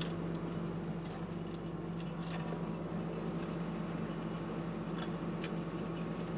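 Hitachi 150 excavator's diesel engine running steadily while the final drive slowly turns the split steel track off the sprocket, with a few faint knocks.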